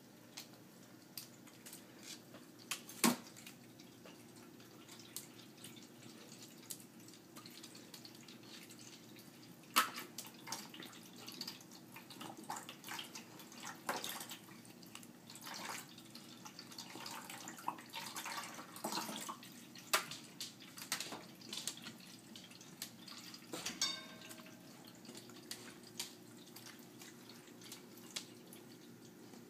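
Husky puppy splashing and drinking at a pet water fountain: irregular splashes, drips and small knocks, busiest through the middle, over running water and a steady low hum.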